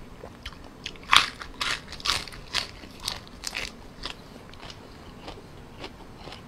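Close-up chewing of cooked blood cockles, a run of crisp crunching clicks, densest in the first half and thinning out after about four seconds.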